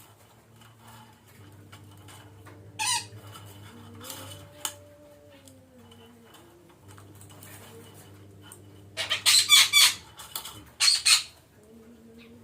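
Parakeets (betet) giving harsh, shrill squawks: single calls about three and four and a half seconds in, then a rapid series of loud calls near the end. A steady low hum runs underneath.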